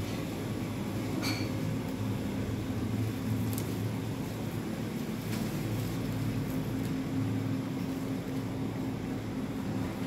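Steady low hum and rumble of a supermarket's refrigerated display cases, with a few faint ticks.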